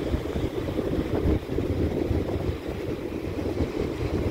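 Strong wind buffeting the microphone in a low, fluttering rumble, over surf breaking on rocks.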